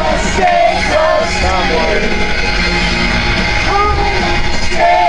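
Pop-rock song with a sung lead vocal over a full band, loud and steady.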